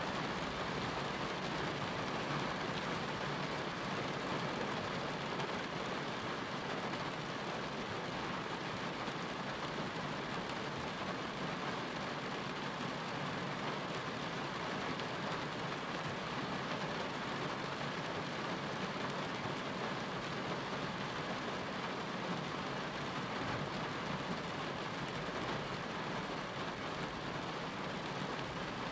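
Steady rain, an even hiss with no breaks or pauses.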